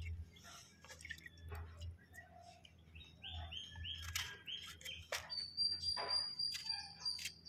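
Birds chirping, with a run of short chirps midway and a thin high call held from about two-thirds of the way through, over soft scattered clicks of a small knife cutting a tomato held in the hand.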